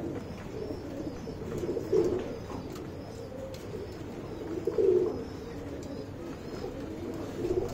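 Domestic pigeons cooing, with a louder coo about every three seconds.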